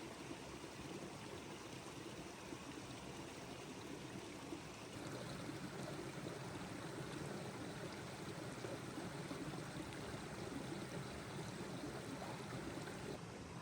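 Steady rush of running water, a little louder from about five seconds in.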